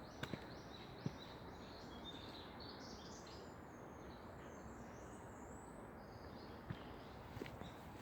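A small songbird singing a quick run of short high notes for about five seconds, over a steady outdoor background hiss, with a few faint knocks.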